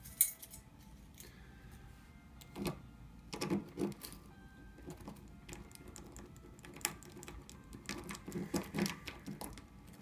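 Scattered metallic clicks and scrapes of car jiggler keys being slid into and worked in a Nissan car lock cylinder, with keys on the set jangling now and then. One sharp click comes just after the start, and there are clusters of clicks around the middle and near the end.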